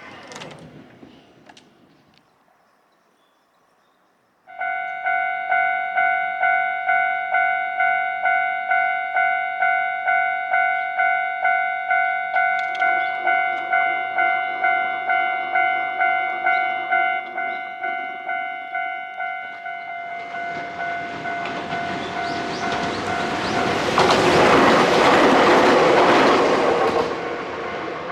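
Japanese level-crossing warning bell starts ringing about four seconds in, a steady electronic "kan-kan" at about two strikes a second. From about twenty seconds in, a train approaches and runs through the crossing, loudest near the end, while the bell keeps ringing.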